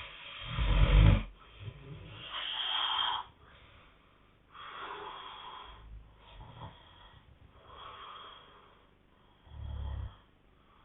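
Snoring in sleep: about five snoring breaths a few seconds apart. The loudest and deepest comes about a second in, and the later ones are quieter, the last a short low snore near the end.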